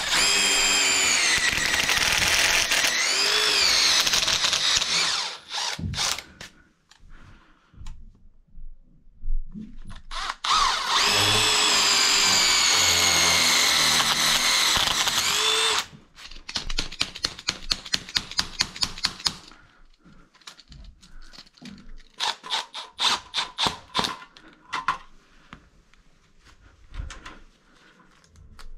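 Milwaukee Fuel cordless drill boring into a masonry wall in two long runs of several seconds each, its motor whine wavering in pitch. Then a quick rattling series of short clicks and a few brief pulses as the box's screws are driven.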